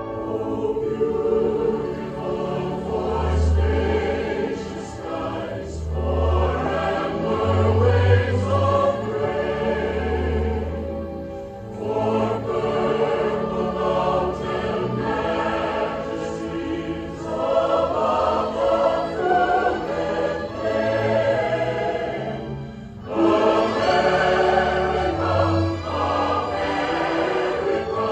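A choir singing over instrumental accompaniment, with long low bass notes underneath. The music dips briefly between phrases, about 12 and 23 seconds in.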